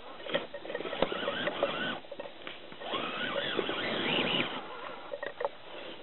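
Small electric motor and gearbox of a Gmade Komodo RC scale crawler whining as it climbs over a tree root, the pitch rising and falling with the throttle, with a few short clicks and crackles.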